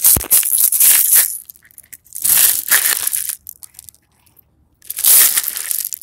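Beach pebbles crunching and rattling close to the microphone in four short rough bursts, as stones shift under the hand and the phone.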